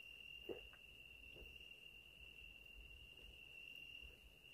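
Faint, steady high-pitched trill of crickets or similar insects, with a couple of soft faint clicks about half a second in.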